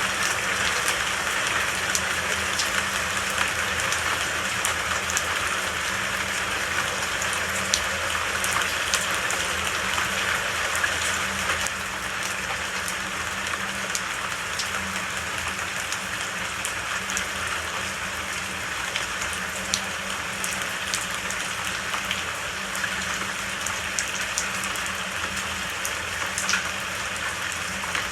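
Steady rain falling, an even hiss with scattered sharp drop ticks, easing a little after about twelve seconds.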